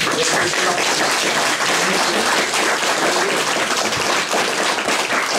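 An audience applauding: a dense round of clapping that breaks out at once and holds steady.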